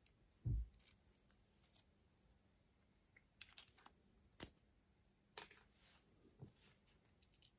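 Scattered light clicks and taps of small metal fittings and tools being handled during disassembly, with a dull low knock just after the start and one sharp click about four seconds in.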